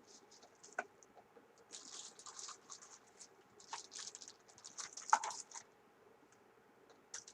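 Packaging being handled: intermittent rustling and scratching, with a few light knocks, the loudest about five seconds in.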